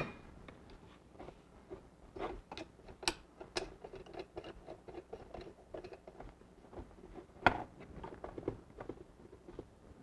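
Faint, scattered clicks and light rustling of hands handling freshly soldered wires and a Deans plug held in a small bench vise, with two sharper clicks about three seconds in and again about seven and a half seconds in.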